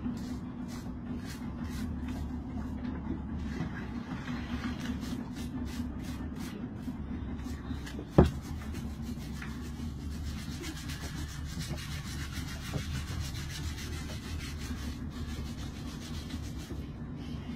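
Barnacles being scraped off a sea turtle's shell with a blade: rapid, repeated scraping strokes, with one sharp knock about eight seconds in, over a steady low hum.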